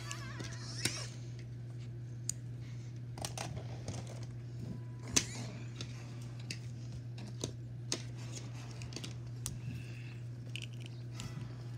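Plastic toy figures and a toy car being handled and moved by hand: scattered small plastic clicks and knocks, the sharpest about five seconds in, over a steady low hum.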